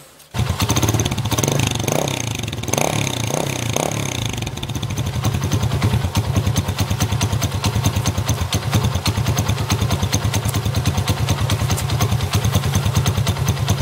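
Alpha moped's single-cylinder four-stroke engine running steadily at idle, starting suddenly just after the beginning.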